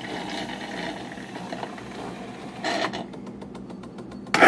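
Saeco Exprelia Evo superautomatic espresso machine starting its latte macchiato cycle: a steady hum with a run of rapid clicks, about ten a second, from its pump. Just before the end a sudden loud hissing burst as the milk steaming begins.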